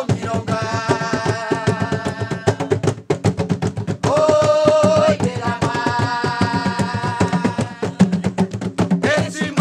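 Women's voices singing a jongo song in long held notes, over a steady pattern of drum strokes. The singing breaks off briefly around three seconds in and again near four seconds.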